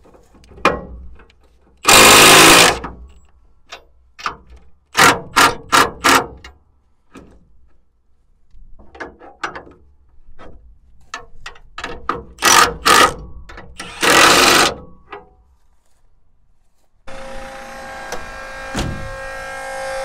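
Cordless power tool run in short bursts to tighten a slack drive chain's tensioner: one longer burst, then a quick run of four, then a few more. Music comes in near the end.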